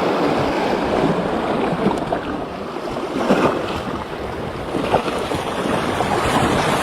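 Sea waves washing on the shore in a steady rush of surf, with wind on the microphone.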